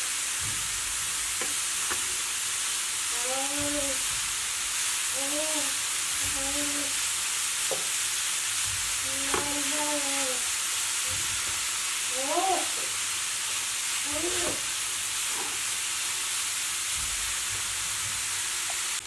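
Grated beetroot and carrot frying in coconut oil in a pan: a steady sizzle, with a utensil stirring and knocking in the pan.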